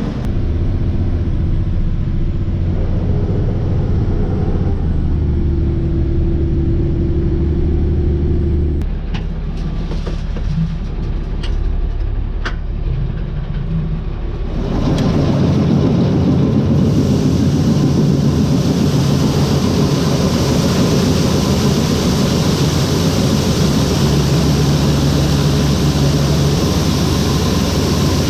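Heavy vehicle engine running steadily, with a few sharp clicks near the middle; about halfway through, a louder, even rushing noise takes over.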